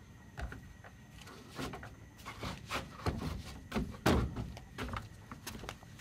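Soft, irregular knocks and clicks, about two a second, with a slightly louder knock about four seconds in.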